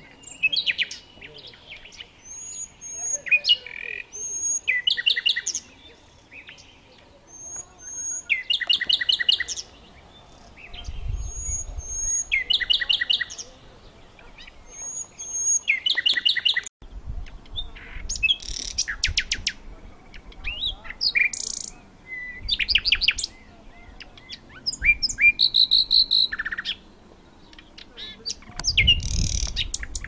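Nightingale singing: a run of short song phrases, each a second or two long with brief pauses between, made of rapid repeated notes and trills and a few high clear whistles.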